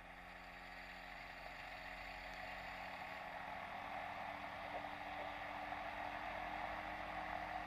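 Quicksilver ultralight's engine being throttled gently up toward 3,000 RPM for the pre-takeoff run-up, a steady drone that grows slowly louder. It sounds muffled, picked up by a microphone inside the pilot's headset.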